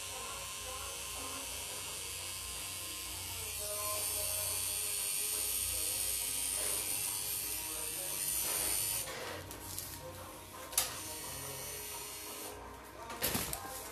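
Pen-style rotary tattoo machine buzzing steadily as it works ink into skin, stopping about nine seconds in. Two sharp clicks follow near the end.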